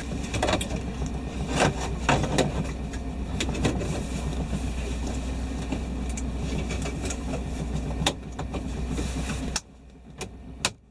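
Chevy pickup engine idling with a steady low hum, over scattered plastic clicks and knocks as the new 4WD selector switch is pushed into its cavity in the dash. The hum cuts off suddenly near the end.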